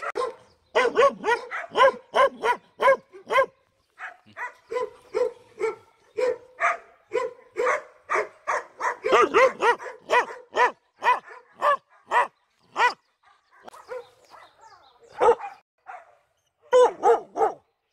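Laika dogs barking and yipping in rapid short calls, about two to three a second, going quieter for a couple of seconds a little after the middle before loud barks start again near the end.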